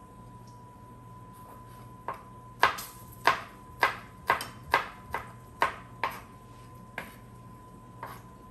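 Chef's knife chopping a garlic clove on a wooden cutting board: about a dozen sharp knocks of the blade on the board, roughly two a second, starting about two seconds in.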